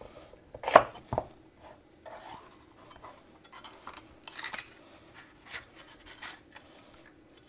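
Chef's knife cutting a bell pepper on a wooden cutting board. Two sharp knocks of the blade on the board come about a second in, followed by softer cuts and scrapes.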